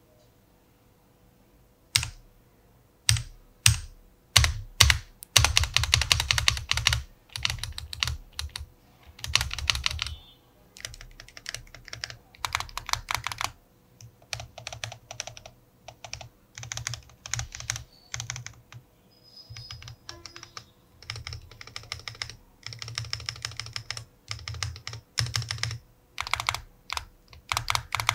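Typing sound test on an Ajazz AK980 aluminium mechanical keyboard: a few single keystrokes at first, then runs of fast typing broken by short pauses.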